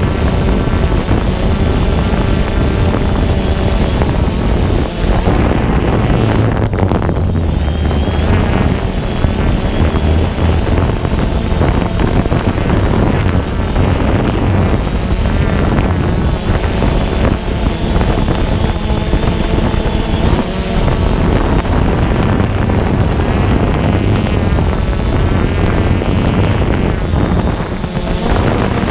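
DJI Phantom 2 quadcopter's four propellers and electric motors running, heard up close from the camera mounted on the drone as it climbs. A loud steady whir with wind on the microphone and a motor whine that wavers in pitch as the throttle changes.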